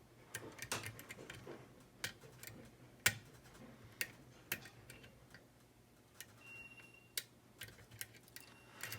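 Pick and tension tool clicking against the pins and core of an ERA rim lock cylinder being picked, sharp irregular clicks roughly once a second.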